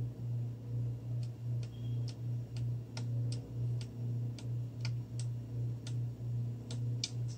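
A dozen or so light, sharp clicks at irregular intervals as hands twist a soft-plastic swimbait body onto the wire coil of a screw lock weight, over a low hum that pulses about three times a second.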